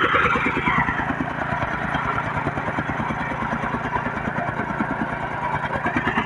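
Gasoline tamping rammer running at work: its small engine runs steadily while the foot plate pounds loose soil in a rapid, even rhythm of knocks, many per second.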